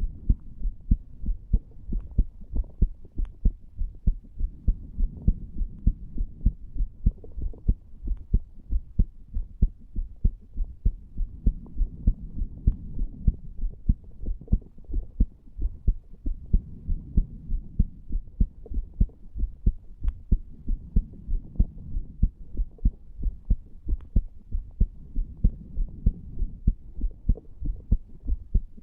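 A human heart beating, recorded against the chest at the tricuspid valve area: a steady, regular series of low, dull thumps.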